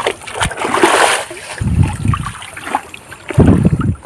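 Shallow river water splashing and sloshing around a person wading. A burst of splashing comes about a second in, and two heavier, deeper sloshes follow later.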